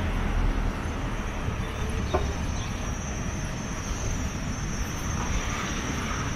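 Low rumble of passing road traffic, with a steady high-pitched whine above it and one faint click about two seconds in.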